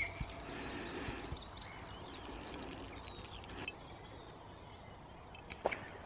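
Outdoor ambience: faint birds chirping over a steady background hiss, with a couple of sharp clicks near the end.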